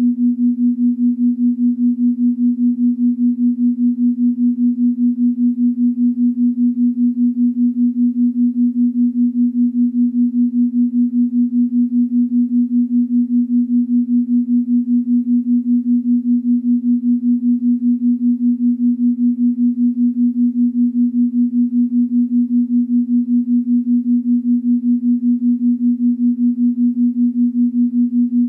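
A single steady, low electronic tone that pulses evenly in loudness several times a second: a beating meditation tone of the binaural-beat kind, meant for headphones.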